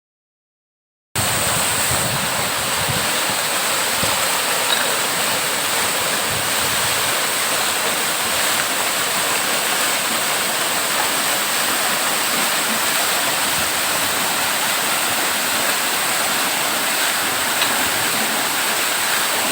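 Waterfall: a steady, even rush of falling water that starts about a second in.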